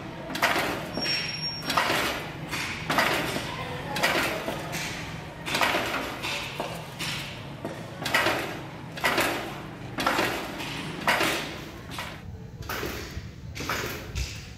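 Spot welder joining stainless steel strips to a round stainless base plate, firing about once a second at irregular intervals: a short sharp burst with a brief tail at each weld, over a low steady hum.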